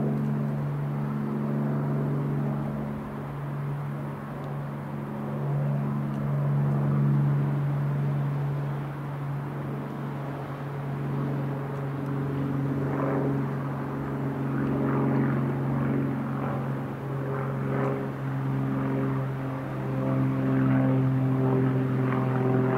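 Rockwell Commander 114B light aircraft flying overhead, its six-cylinder Lycoming piston engine and propeller giving a steady low drone. Higher tones join in about halfway through and again near the end.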